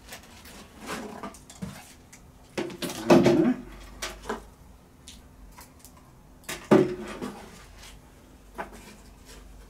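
Cameras, one a Chinon SLR, being lifted out of a cardboard box and set down on a wooden tabletop: a few short clunks and knocks with handling rustle between them. The loudest clunk comes about three seconds in and a second sharp one near seven seconds.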